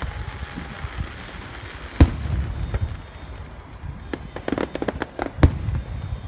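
Aerial fireworks shells bursting: a loud boom about two seconds in, a quick string of smaller pops a couple of seconds later, then another loud boom near the end.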